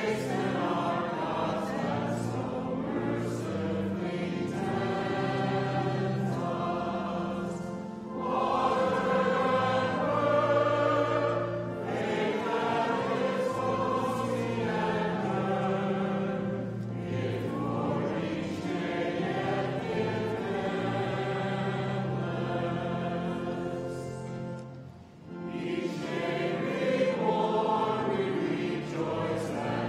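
A large assembly of hundreds of voices singing a hymn together with accompaniment, continuous phrases with a short break between lines about 25 seconds in.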